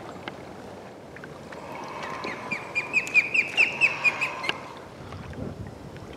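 Osprey calling: a quick run of about a dozen short, high chirps, roughly five a second, starting about two seconds in and stopping suddenly after about two and a half seconds.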